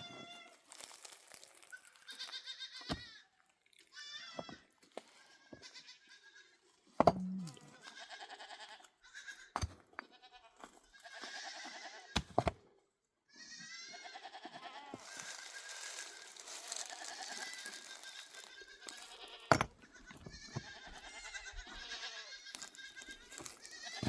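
Goats bleating again and again, many quavering calls overlapping, with a few sharp knocks in between.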